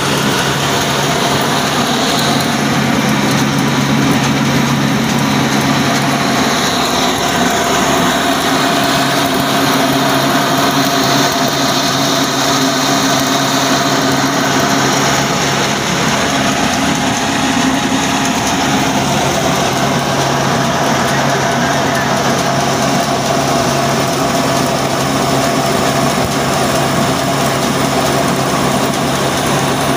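Ruston Hornsby diesel engine running steadily under load, belt-driving a flour mill that is grinding wheat; the engine and the mill together make a loud, unbroken mechanical din.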